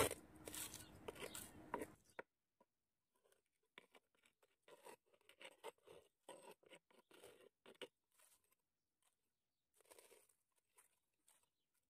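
Faint scrapes and crunches of a hand tool loosening dry potting soil around the base of a rose plant. A rustling scrape fills the first two seconds, then scattered short scrapes follow.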